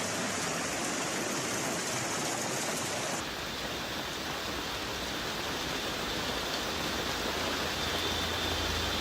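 Hailstorm: hail and heavy rain pelting down in a steady hiss, with an abrupt change in the sound about three seconds in. A low rumble builds near the end.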